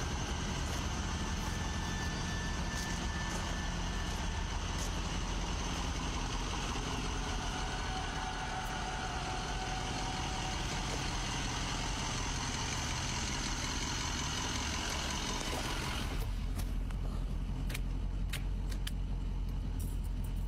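Ambulance engine idling with a steady low rumble and hum. About three-quarters of the way through, a hiss drops away, and a few light clicks follow.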